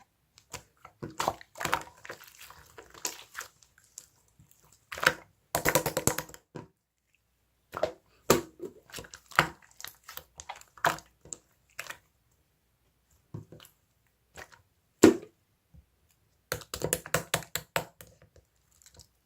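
Irregular bursts of small, sharp clicks and taps, with short pauses between them and one louder tap about 15 seconds in.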